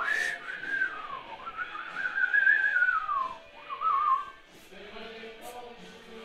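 Someone whistling a wavering tune by mouth, which breaks off about four seconds in.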